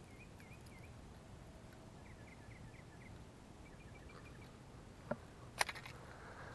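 A songbird chirping in three short runs of quick repeated notes over a low outdoor rumble, then two sharp clicks about five seconds in.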